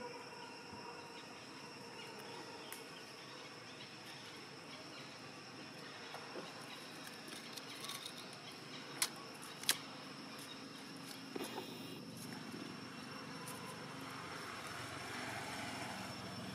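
Outdoor ambience with a steady high insect drone over a low background hiss, and two sharp clicks about nine and ten seconds in.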